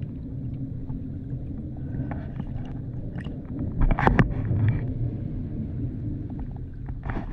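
Muffled underwater sound picked up by an action camera in its housing: a steady low rumble with scattered clicks and knocks, and a louder crackling burst about four seconds in.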